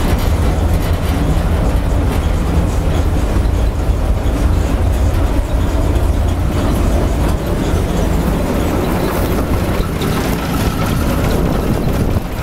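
Claas Matador Gigant combine harvester running while harvesting mustard: a loud, steady low rumble from the engine and threshing machinery, with a rattle over it.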